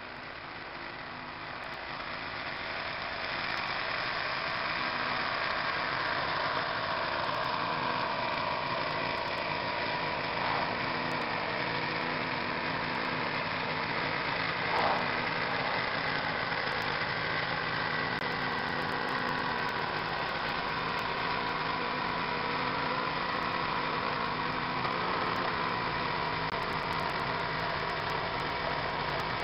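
Walk-behind snow blower's small engine running steadily under load as it clears snow, growing louder over the first few seconds as the machine comes closer.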